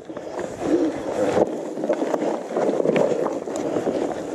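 Gravel bike riding slowly over a rough, rocky trail strewn with leaves: the tyres crunch over the stones, with scattered knocks and rattles from the bike and a steady rumble of wind on the microphone.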